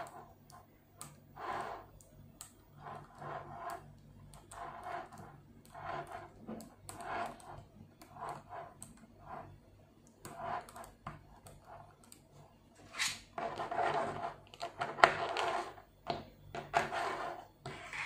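5 mm neodymium magnetic balls clicking and rattling as they are handled and snapped together, in short irregular spells of clicks that grow denser and louder about three quarters of the way through.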